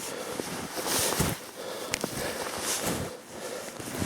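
Snowshoe steps in deep snow, a crunching swish with a soft thump about every second and a half.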